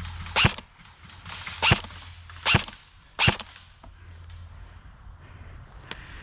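Airsoft gun firing four single shots, sharp and loud, spaced unevenly over about three seconds, then a few faint clicks.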